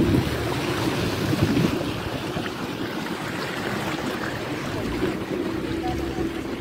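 Motorboat engine running steadily as the boat moves across floodwater, with water rushing past the hull and wind on the microphone.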